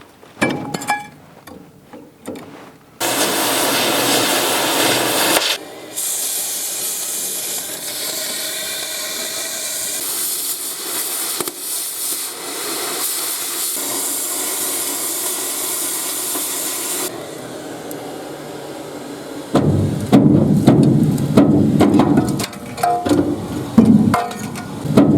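Oxy-acetylene cutting torch hissing steadily as it cuts through steel hull plate, loudest for the first couple of seconds of the hiss. About twenty seconds in it gives way to a run of heavy clanks with a short metallic ring.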